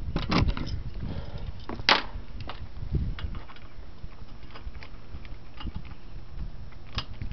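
A flat-blade screwdriver working the screw of a hose clamp on an intake tube: scattered small metal ticks, with two sharp clicks, one about two seconds in and one near the end.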